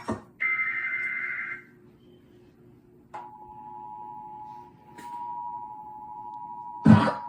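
Emergency Alert System signal. A burst of warbling SAME header data tones ends about 1.7 s in. After a short gap, the steady two-tone EAS attention signal starts about 3 s in, signalling an incoming severe thunderstorm warning. A brief loud noise from the room cuts in near the end.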